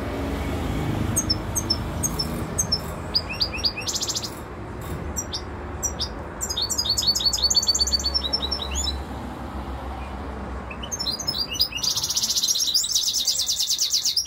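Caged European goldfinch singing: scattered short chirps build into quick twittering phrases, then a long, fast trill near the end, over a low background rumble.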